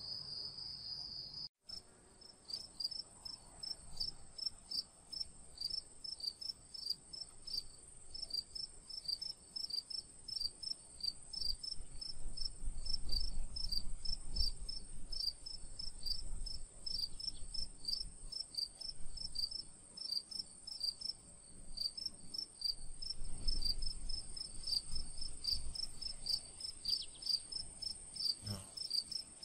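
Insects chirping: a regular high chirp a few times a second over a steady high-pitched whine, with a faint low rumble in between.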